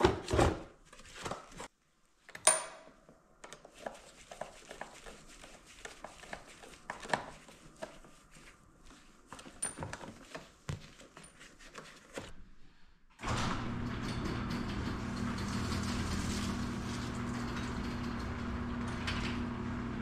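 Clicks and small knocks from fitting a battery into a Honda Rancher ATV, then about two-thirds of the way through the ATV's single-cylinder engine starts suddenly and settles into a steady idle.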